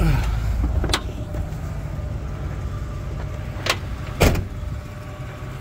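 A car door being opened and shut as someone climbs out of a parked vehicle, with handling knocks and clicks. A low rumble fades in the first second, and the loudest knock comes about four seconds in.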